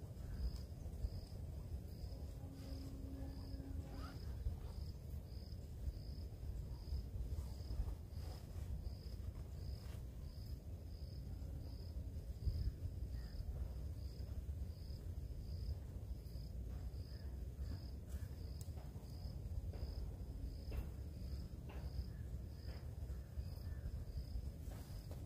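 An insect, tagged as a cricket, chirps steadily at an even pace, about one and a half high chirps a second, over a low steady rumble with a few faint clicks.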